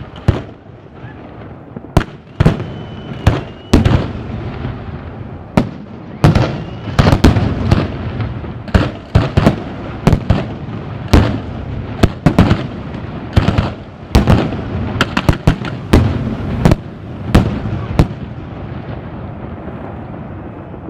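Fireworks: aerial shells and rockets going off in a rapid, irregular barrage of loud bangs over a steady crackling rumble. The barrage thins out in the last few seconds.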